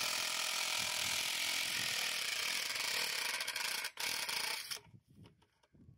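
DeWalt cordless drill boring a hole through PVC pipe, its motor running steadily under load. It cuts out for an instant about four seconds in, runs again briefly, then stops about five seconds in.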